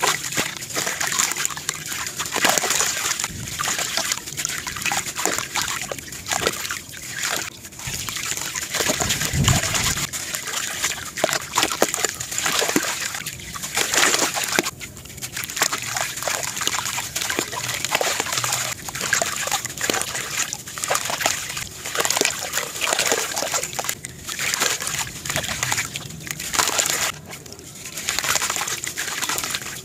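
Clumps of dry, gritty sand crumbled by hand into a basin of water: an uneven crunching and a hiss of fine grit pouring and splashing into the water, sped up to 1.5x.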